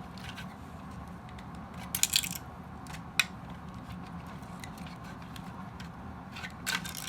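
Small hard plastic parts of a toy robot clicking and clattering as they are pulled apart by hand: a cluster of clatters about two seconds in, a single sharp click a second later, and more clicks near the end, over a steady low hum.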